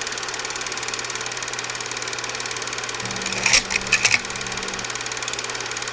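A small machine running with a fast, even clatter over a low hum. A few short, sharper, louder sounds come about three and a half to four seconds in.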